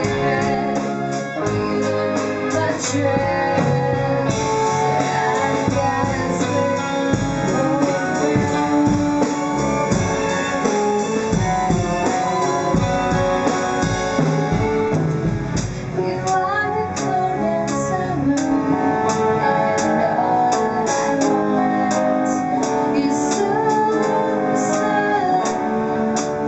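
Music: a song with guitar and a singing voice, playing steadily throughout.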